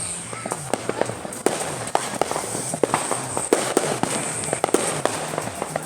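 Firecrackers and fireworks going off all around in a dense, irregular string of bangs and pops, with a few short whistling glides.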